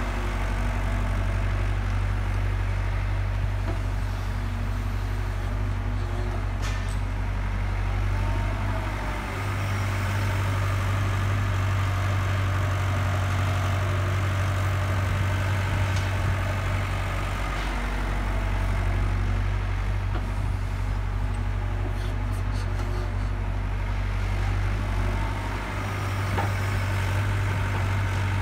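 Hyundai 85A crawler excavator's diesel engine running steadily as the machine works its boom and bucket, the low engine note shifting briefly about three times. A few light clicks or knocks sound over it.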